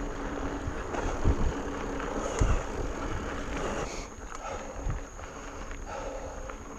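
Mountain bike rolling fast downhill over a rocky trail: tyres on dirt and rock with the bike rattling, and heavy thumps as it hits rocks about a second in, near two and a half seconds and near five seconds.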